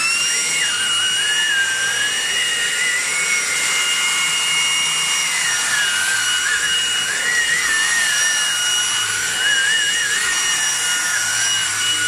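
Vax ONEPWR Blade 4 cordless stick vacuum running on boost mode with its powered brush roller on, vacuuming crumbs from carpet. It makes a steady high motor whine, with one tone that wavers up and down as the floor head is pushed back and forth.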